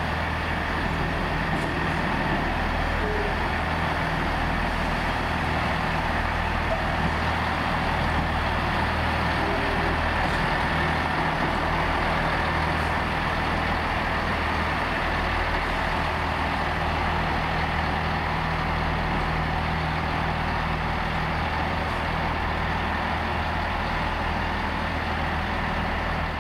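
Class 158 diesel multiple unit's underfloor diesel engines running steadily with a low, even drone.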